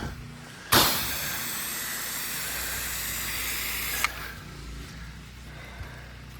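Pressure-washer spray gun spraying: a steady hiss starts suddenly about a second in and cuts off abruptly with a click after about three seconds. A low, steady engine hum runs underneath.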